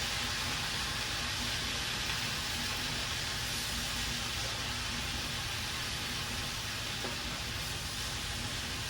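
Sausage and cabbage sizzling steadily in a skillet as the cabbage wilts down in broth, an even hiss.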